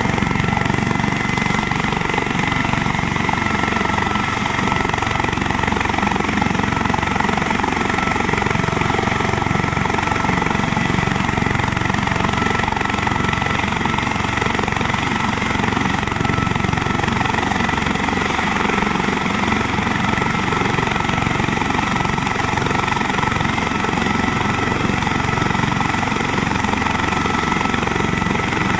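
COBREX helicopter's engine and rotor running steadily, with a constant high whine over the dense rotor noise and no change in pitch or loudness.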